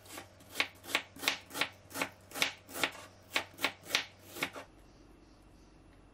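Chef's knife slicing a red onion half into strips on a bamboo cutting board: about a dozen cuts, nearly three a second, each stroke going through the onion to the wood. The cutting stops about two-thirds of the way through.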